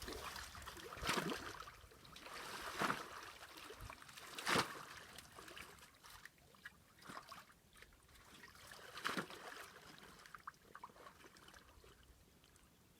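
Shallow water splashing and trickling in four separate bursts as a hand scoop net is worked through the water and lifted out, quieter near the end.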